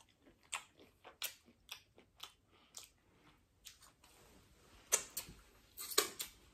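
A person chewing a mouthful of food, with short wet mouth clicks and smacks about twice a second. Near the end come a few louder knocks and rustles.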